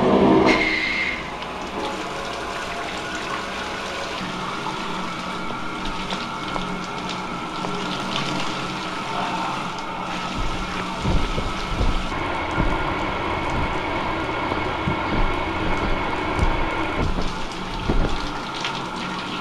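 Shower running: water spraying from the shower head and splashing steadily, with a brief louder burst right at the start as it comes on.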